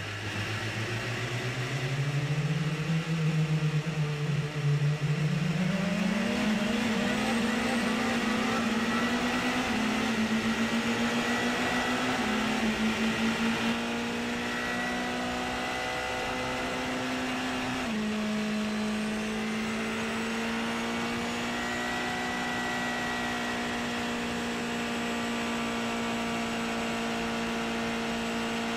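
Porsche 919 Hybrid race car's turbocharged 2.0-litre V4 engine heard onboard, rising in pitch as the car accelerates away, then shifting pitch in steps a few times before running at a steady pitch.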